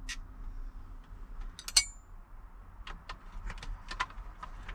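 Light clicks and taps of small metal parts and tools being handled at a truck's steering column, with one sharp metallic clink about two seconds in that rings briefly.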